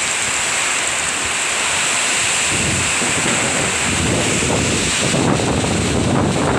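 Heavy downpour: a steady, loud hiss of rain. From about halfway through, gusts of wind buffet the microphone with low, uneven rumbles.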